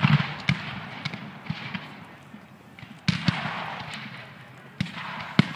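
Black-powder musket fire from a mock battle, heard at a distance: scattered cracking shots, with the loudest volley about three seconds in trailing off into a rolling rumble.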